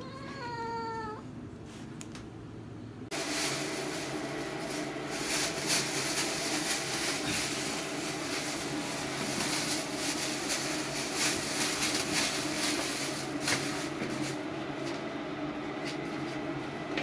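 A cat meows once, a short call falling slightly in pitch. About three seconds in it gives way to a black plastic bin bag rustling and crackling steadily as it is handled.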